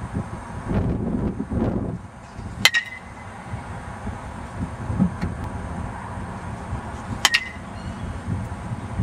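A metal baseball bat hitting a pitched ball twice, about four and a half seconds apart, each hit a sharp ping with a brief ring. Wind rumbles on the microphone underneath.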